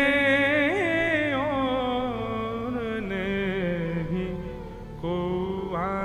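Man singing a devotional pad in a long, drawn-out, ornamented line over a steady accompanying drone; the held note fades and a new sung phrase starts about five seconds in.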